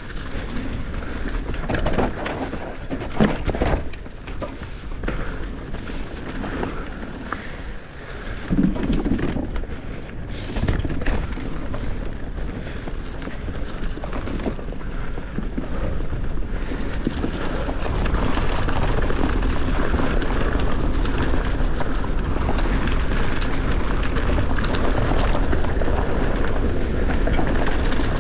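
Mountain bike riding fast down a dirt forest trail: tyres rolling over dirt and dry leaves, the bike rattling and knocking over bumps, and wind rushing on the microphone. From about two-thirds of the way through, the rushing grows louder and steadier as the bike gathers speed.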